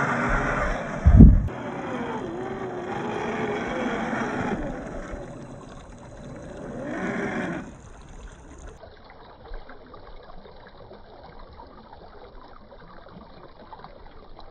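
Small electric motor and drivetrain of a 1/10 scale RC crawler whining, its pitch rising and falling with throttle, with one heavy thump about a second in. About eight seconds in the sound stops and only a faint hiss is left.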